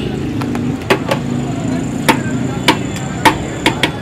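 Sharp, irregular clacks of a serving plate knocking against a large steel cooking pot as rice is scooped out, about eight knocks, over a steady low background noise.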